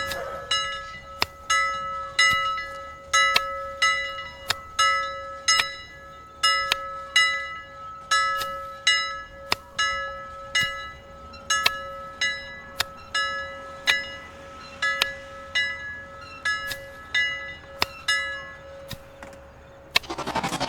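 Railroad crossing warning bell ringing, struck over and over at an even pace of a little more than once a second over a steady tone. Near the end a louder rush of noise comes in.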